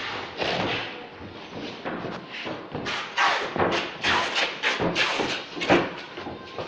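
Irregular thuds and rustles, several a second, from cartons and packing material being handled.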